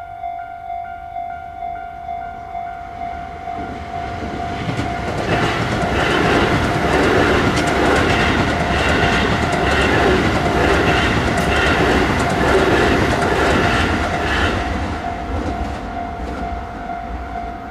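Railway level-crossing alarm ringing steadily in quick repeated tones while a train passes over the crossing. The wheels clatter over the rail joints, building over the first few seconds, loudest in the middle, and dying away near the end while the alarm keeps ringing.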